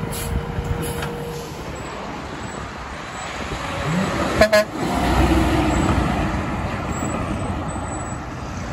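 Western Star 4700SF dump truck giving a brief toot on its Hadley H02101FP air horns about four and a half seconds in, followed by the low rumble of the truck passing. Before that, steady road traffic noise.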